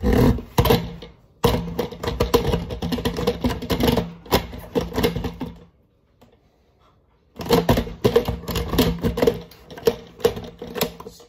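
Countertop blender switched on in bursts, its motor humming under a loud rattling clatter of the jar on its base. It runs for several seconds, cuts off suddenly for about a second and a half, then starts again.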